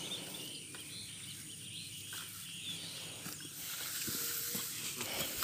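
Rural outdoor ambience: a steady high hiss of insects with small bird chirps. Toward the end, black irrigation hoses rustle as they are dragged through dry grass, with footsteps.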